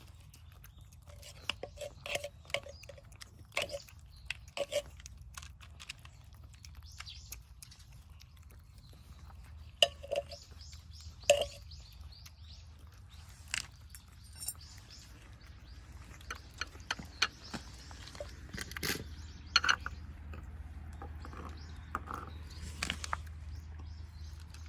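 Cats eating canned cat food: scattered wet chewing and clicking sounds over a low steady hum.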